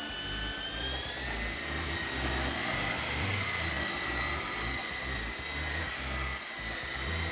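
E-Sky Hunter coaxial RC helicopter running: the whine of its two small electric motors and counter-rotating rotors rises a little in pitch over the first second as they spin up, then holds steady.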